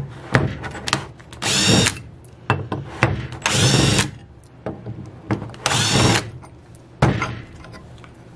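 Cordless drill-driver spinning in four short bursts, each under a second, backing out the screws of a cover plate on an aluminium automatic-transmission valve body. Small clicks of screws and metal parts come between the bursts.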